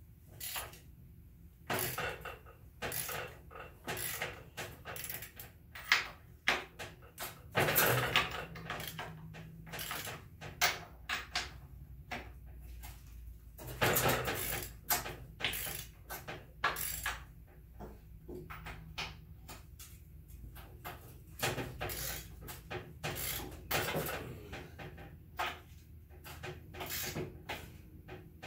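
Irregular metal clicks and knocks of a hand wrench working on an NP231 transfer case, loosening the bolts to pull its cover. Denser runs of clicking come about 8 and 14 seconds in.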